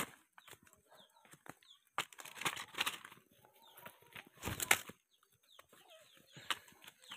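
Wild chicken (red junglefowl) flapping its wings in short, irregular flurries, the loudest about two seconds and again about four and a half seconds in: a skittish bird not yet tame.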